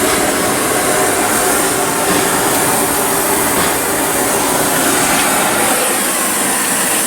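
Gas torch flame hissing steadily as it heats a seized sway bar end link nut, shut off abruptly at the very end.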